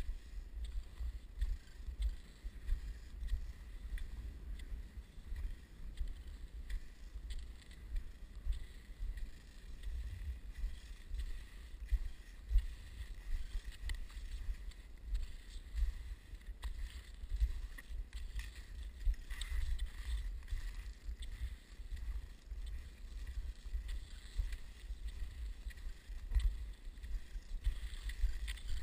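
Wind buffeting the camera's microphone while it moves over snow: a low rumble that rises and falls unevenly, with scattered faint clicks.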